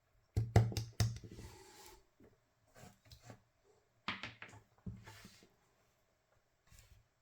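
Hands handling small parts and tools on a workbench: a quick cluster of knocks and clicks about half a second in, then scattered lighter clicks and rustles, over a faint steady hum.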